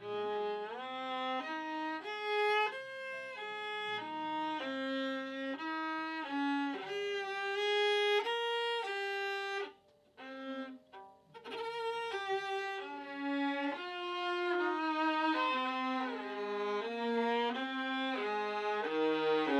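Violin played with the bow: a practice passage in third position, a melody of separate held notes. It breaks off briefly about halfway, then resumes.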